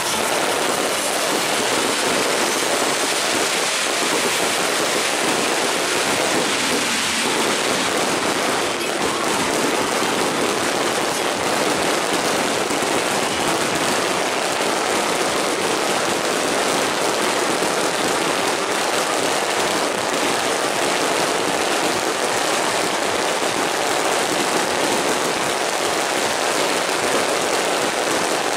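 Fireworks and firecrackers going off in a dense, continuous crackling barrage, steady throughout with no pauses and no single bang standing out.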